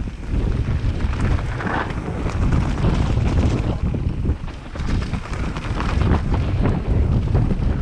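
Wind buffeting a camera microphone over the rumble of a mountain bike riding fast down a rough dirt trail, with frequent rattles and knocks from the bike over bumps.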